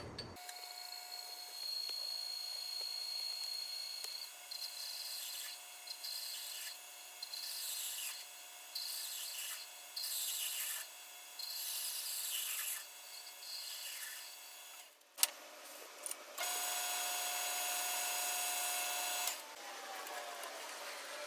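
Old South Bend lathe running while a cutting tool faces off the end of a shaft. A steady whine runs under a scraping cutting noise that comes and goes with each feed of the tool. It drops out briefly with a click about 15 s in, then a louder steady cut runs for about three seconds.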